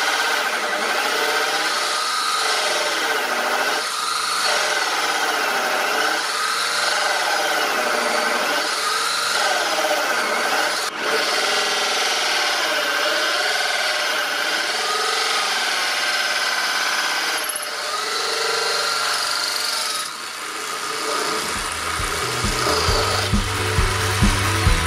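Electric drill on a homemade 12V DC drill press running a hole saw into a disc, its pitch dipping and recovering over and over as the cut is fed in and eased off. Music comes in near the end.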